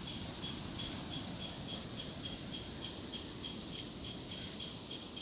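Cricket chirping in a steady rhythm, about three short high chirps a second, over faint low background noise.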